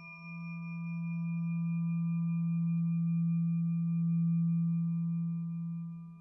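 Ambient drone music: a steady low hum with several fainter ringing tones held above it, like a singing bowl sustaining; the loudness swells through the middle and dips near the end.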